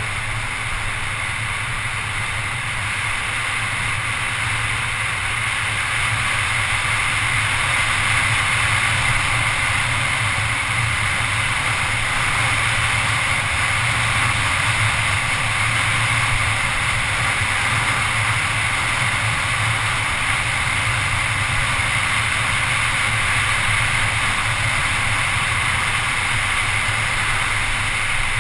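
Steady rush of wind over the microphone mixed with mountain-bike tyres rolling fast on asphalt during a downhill run. It gets a little louder after about six seconds, as the bike picks up speed.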